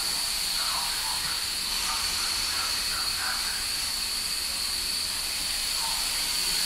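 Steady hiss with a constant high-pitched whine inside an EN57 electric multiple unit's passenger car, from the train's onboard equipment running.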